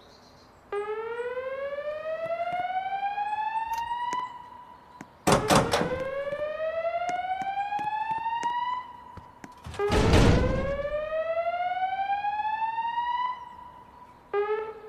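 Fire alarm voice-evacuation speakers sounding the slow whoop tone: three rising sweeps, each about three and a half seconds long, with a fourth just starting near the end. Two short, loud bursts of noise cut in, about five and ten seconds in.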